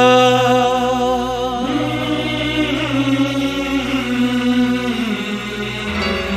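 Song with a long held sung note at the start, then more singing and accompaniment over a steady low drone, the low part shifting near the end.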